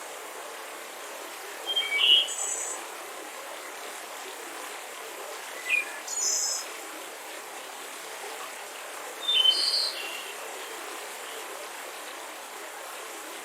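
Forest ambience: a bird calls three times, about four seconds apart, each call a quick chirp followed by a higher, buzzier note, over a steady background hiss.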